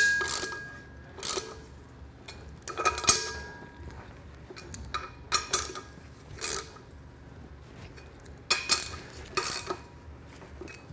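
Hand wrench working the bolts of a steel brake drum on the back of a 4L80E transmission. Scattered metal clicks and clinks come in irregular groups, some with a short ring.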